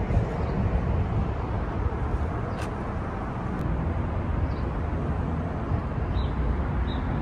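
Outdoor background: a steady low rumble, with a few faint high chirps in the second half.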